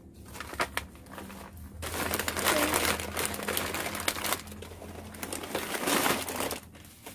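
Plastic snack packets with foil linings and a black plastic bag crinkling as they are gathered up and moved. The rustle is loudest in the middle and again briefly near the end.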